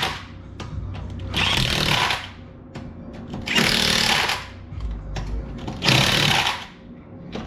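Impact wrench run in three bursts of about a second each, spinning lug nuts during a wheel swap.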